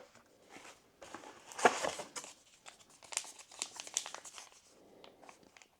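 Foil booster pack wrapper crinkling as it is handled and torn open, in a series of short irregular rustles, the loudest about one and a half seconds in.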